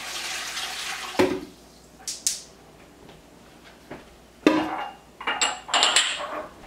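Water pouring from a pitcher into a stainless steel canner pot, which stops about a second in with a knock. Then glass canning jars clinking and knocking against each other several times as they are handled.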